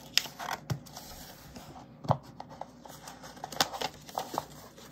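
Paper note being peeled off a colouring-book page: irregular crackling and scraping of paper, with a few sharp clicks.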